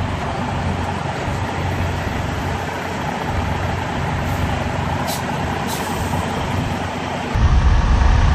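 Semi truck's diesel engine running steadily at low speed while the rig is manoeuvred in reverse, with two brief faint hisses about five seconds in. Near the end the low rumble suddenly becomes louder.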